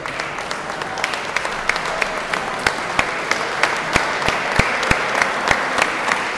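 Audience applauding steadily, with a few nearby hand claps standing out sharply among the rest.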